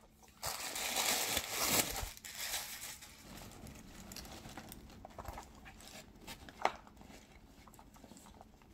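Packing tissue paper crinkling and rustling as the backpack is handled and its flap opened. It is loudest for about a second and a half near the start, then softer rustling with a few light knocks.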